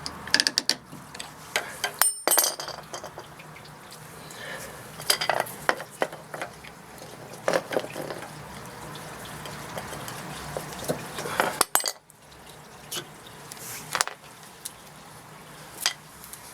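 Irregular metallic clinks and clanks of hand tools and parts while a car's rear brake caliper is taken apart and its guide pins are removed.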